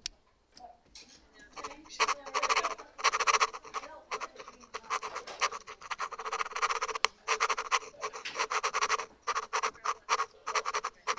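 Foley pen-writing sound: the arm of a pair of sunglasses scratched across a table in quick, irregular strokes, like a pen writing on paper.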